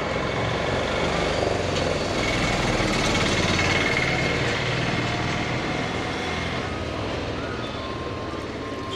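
Motor vehicle engine rumbling, swelling to its loudest about three to four seconds in and then easing off.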